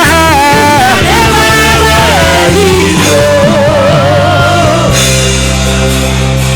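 Live church worship music: a band playing under a sung melody. About three seconds in, the voice holds one long note before the band settles onto sustained chords.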